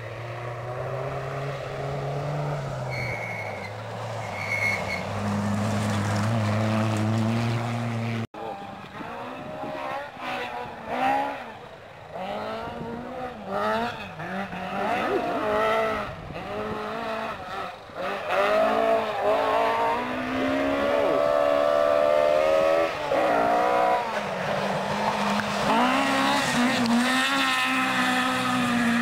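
Two-wheel-drive rally cars at full throttle on a gravel stage, their engines revving up and dropping back over and over with gear changes and lifts through the corners. About eight seconds in the sound breaks off abruptly and another car's run begins.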